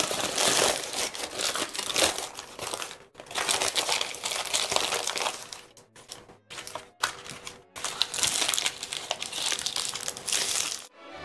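Baking parchment being crumpled and pressed by hand into a tart tin, crinkling and crackling in spells with short pauses about three and six seconds in; it stops just before the end.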